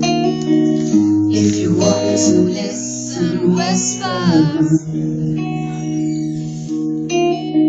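A live rock band playing a song's intro, with held guitar chords, recorded from the audience. A voice slides briefly up and down near the middle, before the vocals begin.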